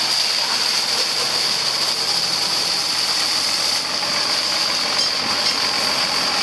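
High-pressure water jet from a hose wand hissing steadily as it blasts against a tractor tyre, with an engine idling underneath.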